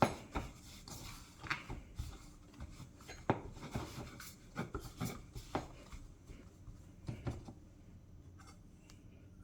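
Hands kneading a soft flour-and-water dumpling dough in a bowl: irregular soft thuds and rubbing, thinning out over the last couple of seconds.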